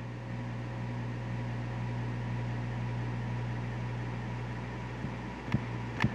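Experimental ambient music: a steady low drone with fainter higher tones held unchanging, joined by a couple of sharp clicks near the end.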